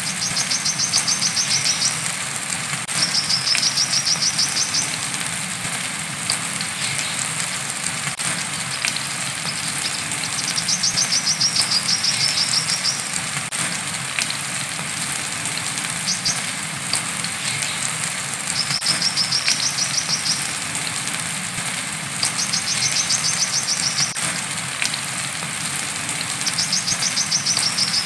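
Brown-throated sunbird (kolibri kelapa) singing: fast, high trills, each phrase a second or two long and repeated every few seconds, over the steady hiss of rain.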